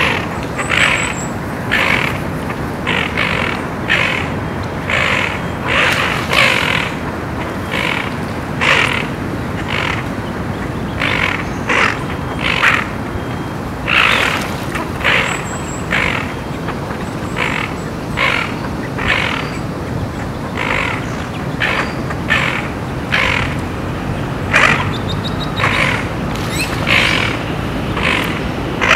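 A duck giving short, harsh calls over and over, about one or two a second, in alarm at a heron holding her duckling. A steady hiss of water runs underneath, and a small bird chirps briefly twice.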